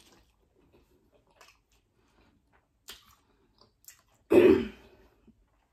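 Person chewing a mouthful of birria beef taco, with soft, wet mouth clicks. About four seconds in there is one short, much louder mouth noise.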